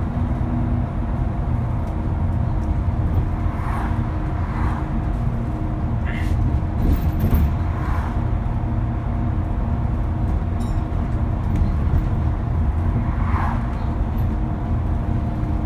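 Diesel bus engine running under way with a steady turbocharger whine over the low engine rumble.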